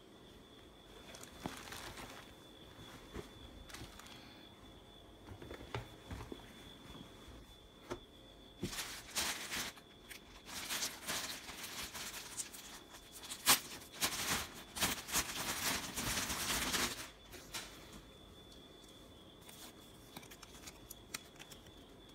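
Rustling and crinkling of clothes being handled. It comes in bursts that are densest and loudest through the middle stretch, with one sharp click about halfway through.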